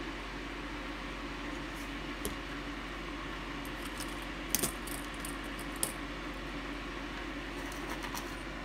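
A few light metallic clicks and clinks from small tools and electronic components being handled, the sharpest pair about four and a half seconds in. Under them is a steady background hum.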